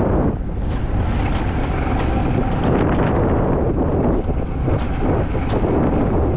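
Rumble of an alpine coaster sled running along its rail at speed, with short clicks and rattles, and wind buffeting the microphone.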